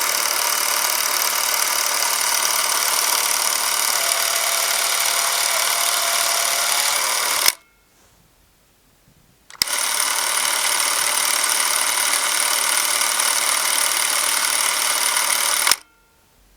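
Prost reflex ZR422 Super 8 camera running its film-transport motor while filming: a steady mechanical whir. It stops abruptly about seven and a half seconds in, and after a two-second pause runs again for about six seconds before cutting off near the end.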